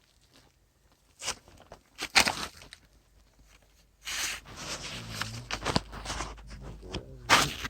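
Handling noises of ductwork being fitted: scattered sharp clicks and crinkles, a longer scraping rustle starting about halfway through, and a loud snap near the end.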